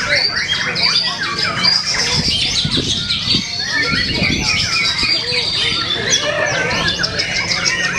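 White-rumped shama (murai batu) singing a loud, varied song of rapid whistles, trills and chattering notes, one phrase running into the next.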